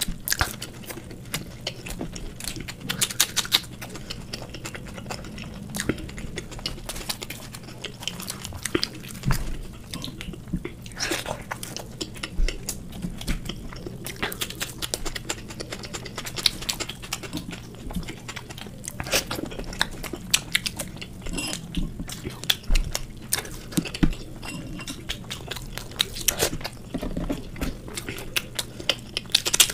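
Close-miked mukbang eating: biting and chewing crisp, deep-fried dal kachori and raw onion, with crunching and wet mouth sounds coming in irregular clicks and crackles.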